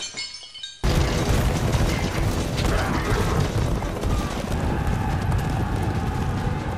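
Massed cavalry galloping: a dense rumble of many pounding hooves on dry ground that starts suddenly about a second in, after a brief fading tone. Music comes in under it in the second half.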